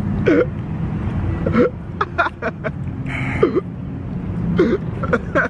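Short pained vocal sounds from people whose mouths are burning from extremely hot chicken wings: about five brief gasps and 'ah' cries, with a sharp hiss of breath about three and a half seconds in. Under them runs a steady low rumble.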